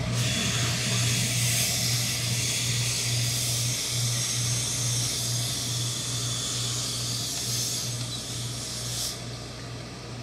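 Tailor's hose-fed steam iron blowing steam: a loud, steady hiss that starts suddenly, with a low electric buzz under it. The hiss eases off about nine seconds in.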